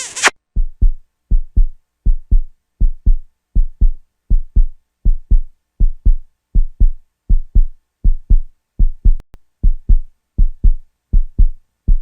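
Heartbeat sound effect: steady pairs of low lub-dub thumps, a little faster than one pair a second.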